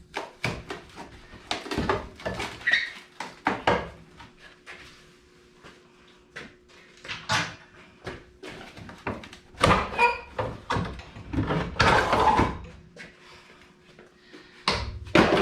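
A truck's heater box being pried and wrenched loose by hand: a string of knocks, clatters and rattles with short squeaks and creaks, busiest near the start and again about 9 to 13 seconds in.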